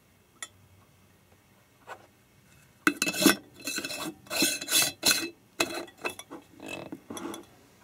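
Metal screw lid set on and twisted down onto a glass Ball mason jar. A light click, then a run of scraping, grating turns as the lid's threads rub on the glass.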